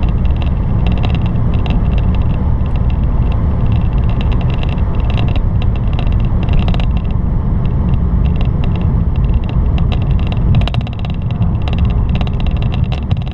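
Steady low rumble of road and engine noise inside a car cruising on a motorway, with a light crackle of small ticks over it.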